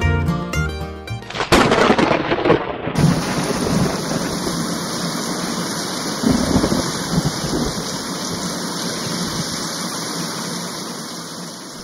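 A sudden thunderclap about a second and a half in, followed by steady heavy rain with low rolls of thunder that slowly fades.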